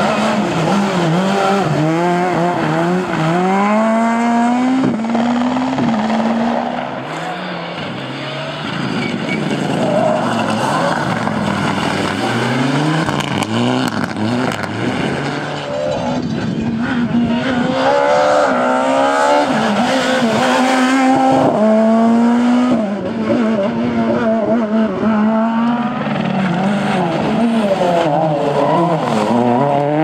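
Rally cars, among them a Skoda Fabia S2000, driven flat out on a tarmac stage, one after another. Their engines rev up and drop sharply again and again with each gear change and lift.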